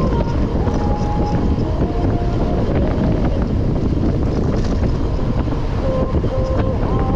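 Heavy wind rumble on the microphone, as when riding a bicycle, with faint held notes underneath that change pitch every second or so.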